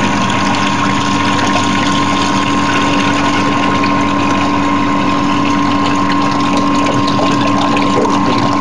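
Water running out of a side outlet at the base of a clear acrylic tank as it drains, over a steady machine hum with two held tones.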